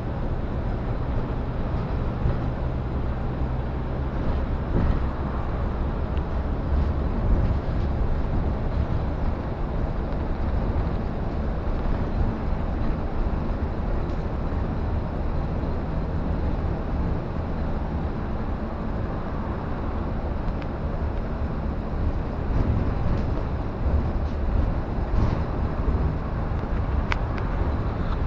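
Inside a moving city transit bus: steady engine drone and road rumble filling the passenger cabin, with a couple of faint rattles or clicks.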